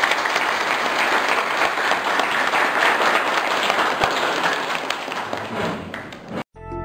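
Audience of a large crowd applauding, a dense patter of many hands clapping that thins out toward the end and cuts off suddenly.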